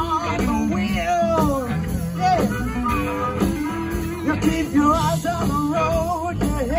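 Live rock band playing through a PA: electric guitars and bass with a harmonica playing bending, wavering lead notes.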